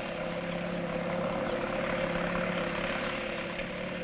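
Tractor-mounted mechanical cotton picker running, a steady engine-and-machinery drone with a low, even hum.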